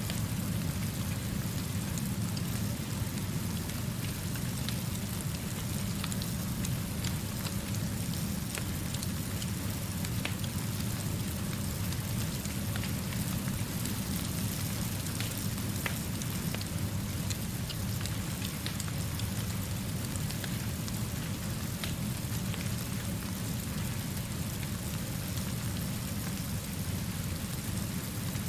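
Steady rainfall with many small scattered ticks of drops and a low, even rumble underneath, unchanging throughout.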